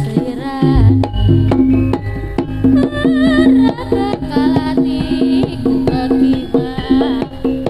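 Loud amplified jaranan accompaniment music: Javanese percussion with drums and gong-like sustained tones under a melody line, and a deep bass that enters about a second in.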